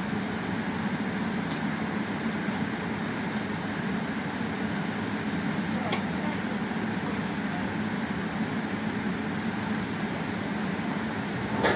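Steady low machinery hum, with a few light clicks.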